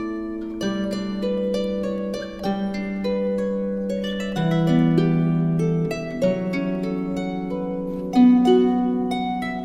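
Slow instrumental music of plucked string notes ringing over held low notes, with a louder pluck about eight seconds in.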